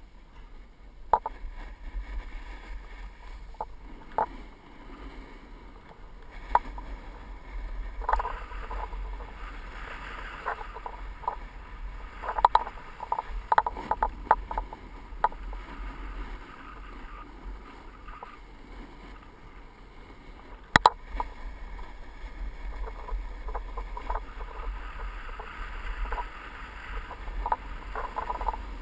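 Snowboard sliding down packed, groomed snow: a continuous scraping hiss that swells and eases in long stretches over a steady low rumble. Scattered sharp clicks and knocks run through it, one much louder about two-thirds of the way through.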